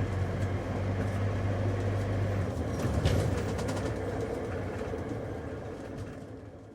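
Taxi cabin ambience: a low engine hum and road noise heard from inside the moving car, with a single knock about three seconds in. The sound fades out near the end.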